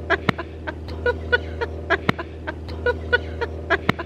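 A man and a woman laughing hard together in quick repeated bursts of 'ha', with a few sharp smacks in among the laughter.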